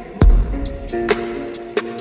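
Music with a beat: one deep bass-drum hit a fraction of a second in, short crisp hi-hat-like ticks, and held notes underneath.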